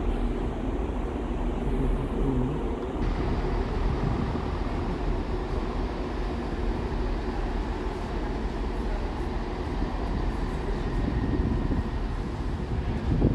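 Northern Class 158 diesel multiple unit rolling past, a steady rumble of its diesel engines and wheels on the rails.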